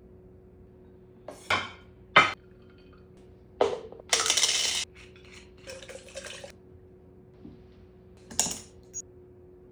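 Dishes and cutlery clattering: several separate knocks and clinks, with a short hissing rush of about half a second a little past the four-second mark.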